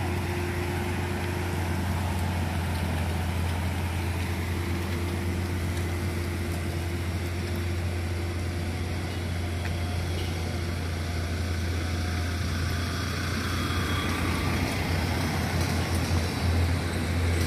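A motor vehicle's engine running with a steady low drone, with the noise of passing cars. The engine sound grows a little louder and rougher near the end.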